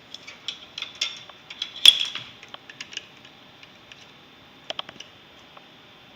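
Plastic Lego bricks clicking and clattering as pieces are handled: a flurry of small sharp clicks over the first three seconds, the loudest about two seconds in, then a few more near five seconds.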